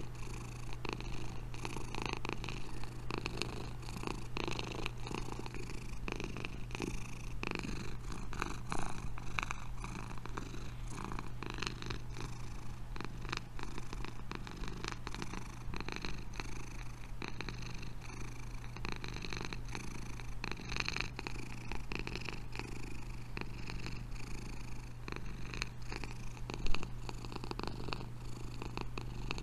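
Domestic cat purring steadily and close up, a continuous rumble. A single short, sharp knock stands out near the end.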